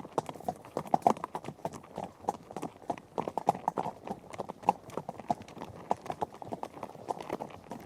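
Horse hooves striking the ground at a run: a dense, irregular patter of several hoofbeats a second.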